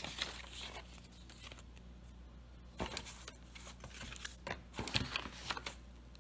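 Packaging being handled during an unboxing: scattered rustling of paper and plastic, with a few light taps and knocks as items come out of the box. There is a burst of rustling near the start, a single knock near the middle, and a cluster of crinkles and clicks near the end.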